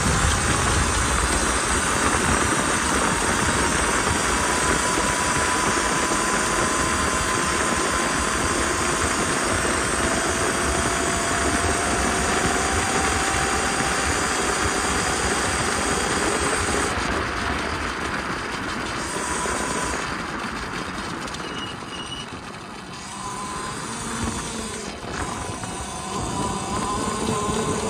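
Volcon Grunt electric off-road motorcycle riding at speed: a steady rush of wind and tyre noise with the electric motor's faint whine, which rises slowly in pitch as the bike speeds up. About twenty seconds in the rush eases and drops in level as the bike slows, then builds again near the end.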